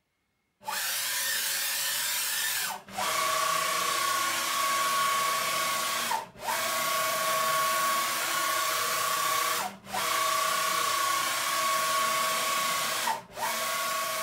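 CNC router's JMC servo motors driving the axes through rapid moves: a steady machine whine at two fixed pitches over a hiss. It drops out briefly about every three and a half seconds as one move ends and the next begins.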